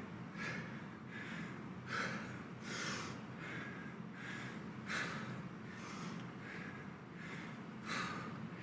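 A man breathing hard under exercise effort: short, sharp breaths about twice a second, a few of them louder gasps.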